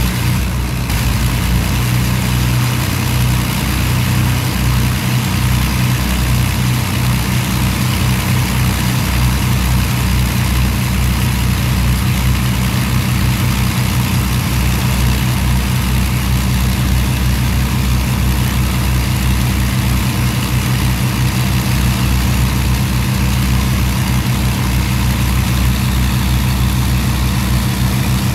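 Avro Lancaster's Rolls-Royce Merlin V12 piston engines running steadily at idle on the ground.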